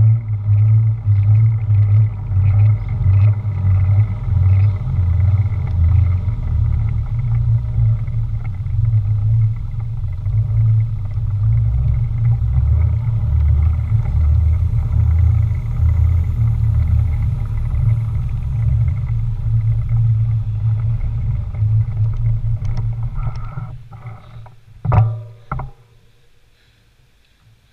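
Steady low rumble of wind buffeting and road vibration on the action camera's microphone while cycling. It fades as the bike slows and stops near the end, with a single sharp knock just before it goes quiet.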